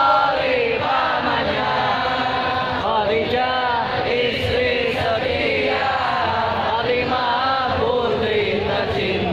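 Islamic devotional sholawat chanted in unison by a large crowd of voices, amplified over the stage sound system, with a melody that rises and falls in long held phrases.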